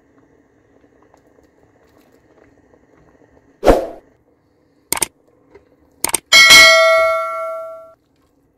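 Subscribe-button animation sound effect: a short rush of noise, a mouse click, two quick clicks, then a bright bell ding that rings out for about a second and a half.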